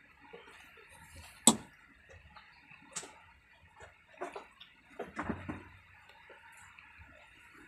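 Metal spoon clinking against a ceramic plate while eating: a few sharp clinks, the loudest about a second and a half in and another at about three seconds, with softer knocks between.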